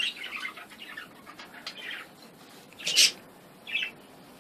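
Budgerigars chattering with quick, warbling chirps, with one short, louder sharp sound about three seconds in and a smaller chirp just after.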